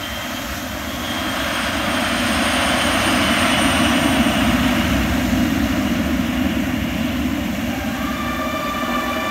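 Water jets of an illuminated musical fountain spraying with a loud rushing hiss. The hiss swells to a peak about four seconds in as the jets reach full height, then eases off, and the show's music comes back in near the end.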